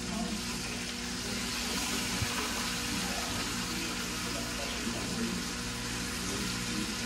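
Steak searing in a hot frying pan on the stove: a steady sizzle as the crust forms, with a faint low hum underneath.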